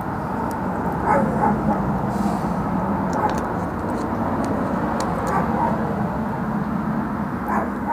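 Steady low rumbling background noise with a few faint clicks and brief indistinct voice sounds.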